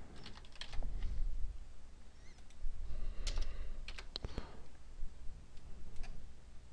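Typing on a computer keyboard: scattered keystrokes in short runs as a few words are typed, with a single click near the end.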